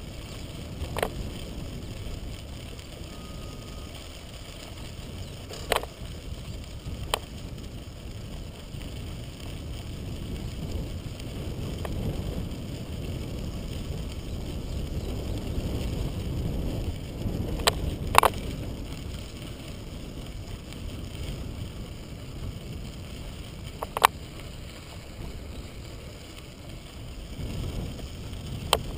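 Bicycle tyres rolling over a crushed-stone trail, a steady low rumble with wind on the microphone, broken by about six short sharp clicks.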